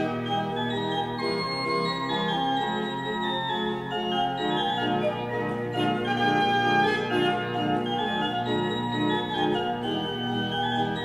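The 1809 Serassi pipe organ playing an early-19th-century Italian sonatina: a repeated chordal accompaniment figure in the low register under a melody higher up. A held low note ends about halfway through.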